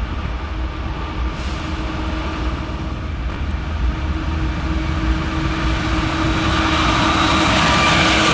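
Train rolling on the mountain grade and getting steadily louder as it comes closer. Its low rumble and a rising rail hiss carry several steady thin whining tones.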